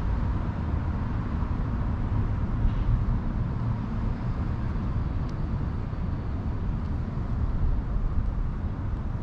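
Steady low rumble of distant road traffic in the open air, with no distinct events.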